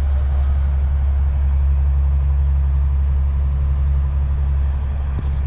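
A wooden fishing boat's inboard engine running steadily under way, heard from inside the wheelhouse as a loud, even, low drone.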